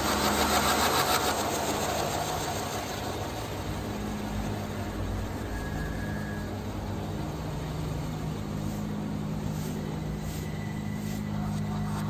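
Ceiling fan on a double downrod running with a heavy wobble: a steady motor hum under the rush of air from the blades. Faint ticks from the swaying assembly come in near the end.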